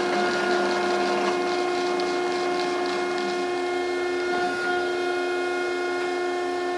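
Landis universal cylindrical grinder running under power, its workhead motor on high speed: a steady mechanical hum and whine made of several constant tones.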